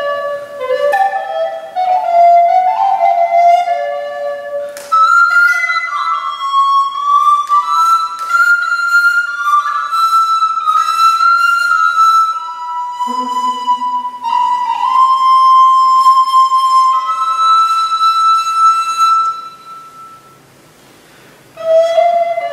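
Solo recorder playing a slow, spare line of separate notes. It starts with shorter notes lower down, then moves to higher held notes, some with sharp attacks. The sound dies away into a brief pause near the end before playing resumes.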